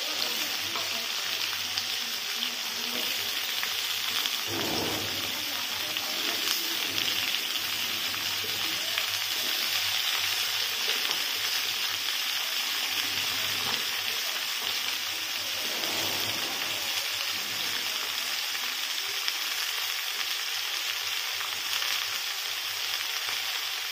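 Chopped vegetables (pumpkin, potato, radish) sizzling steadily in hot oil in a kadai over a gas flame.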